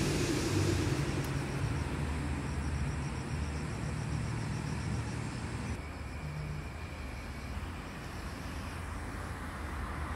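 Outdoor city ambience: a steady low rumble of distant traffic.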